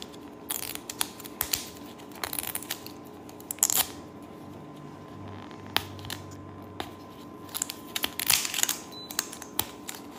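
Printed plastic wrapper being picked at and peeled off a Miniverse toy capsule ball, crinkling and tearing in short, irregular bursts with small clicks between them.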